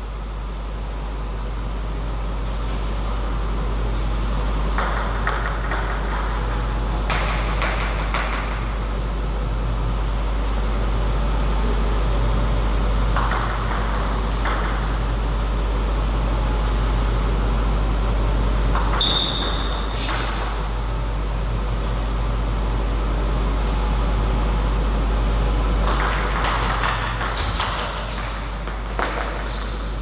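Table tennis ball pinging off bats and the table during a rally, over a loud, steady low hum.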